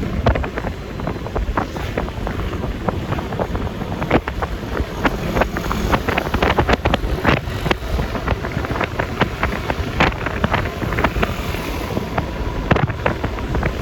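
Wind buffeting the microphone over the running engine and road noise of a Yamaha Lexi LX 155 scooter on the move: a steady low rumble with frequent short crackles.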